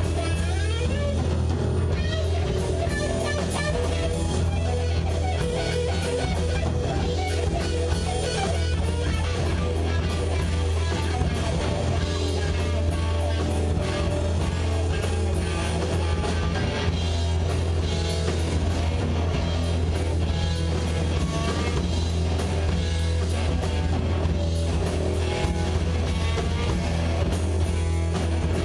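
Live rock band playing: electric guitars, bass guitar and drum kit, loud and steady with a heavy bass.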